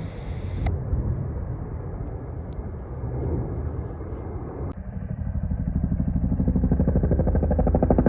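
Engine noise: a rumble, then after a sudden change about two-thirds through, a rapidly pulsing engine beat that grows louder.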